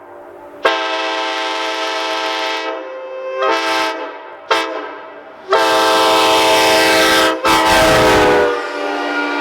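Multi-chime train-style air horn sounding a run of loud blasts, some long and some short toots, each one a chord of several notes. Near the end one blast sags down in pitch before the horn carries on.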